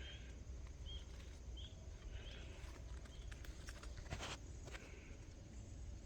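Quiet outdoor ambience with a low steady rumble. Four short, faint chirps, likely birds, come in the first two and a half seconds, and a few soft clicks and rustles fall in the middle.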